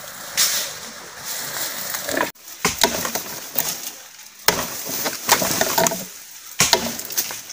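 Irregular snaps, cracks and rustles of dry bamboo stems and leaf litter being handled and trodden on, coming in several short clusters.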